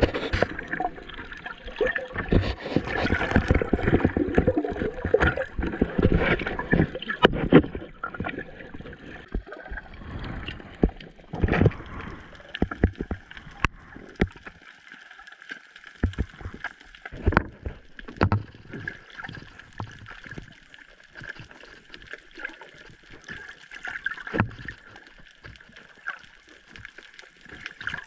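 Water sloshing and gurgling, muffled as heard underwater through a camera housing, with irregular knocks. It is busier and louder in the first half and thins to scattered knocks later.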